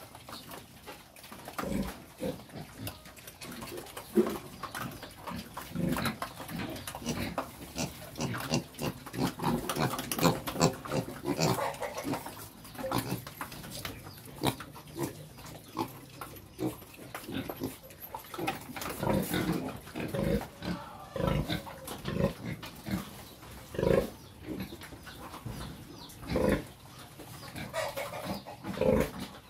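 A pen of young pigs grunting, many short, irregular calls overlapping throughout.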